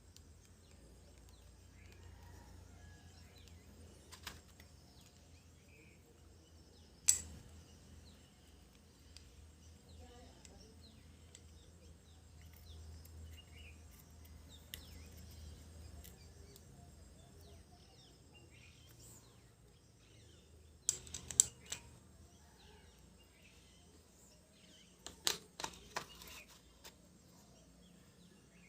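Occasional sharp clicks and taps over a faint low hum. There is one strong click about a quarter of the way in, then two short clusters of quick clicks in the second half.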